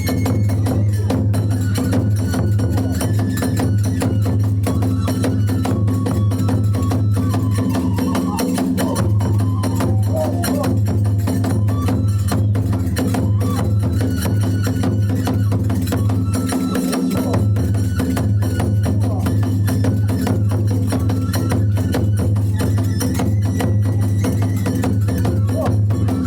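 Kagura hayashi music: rapid, driving drum beats and clashing small hand cymbals, with a flute melody of held notes over them.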